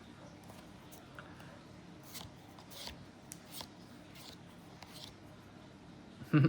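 Pokémon trading cards handled and slid against one another: a few faint, short swishes and soft ticks.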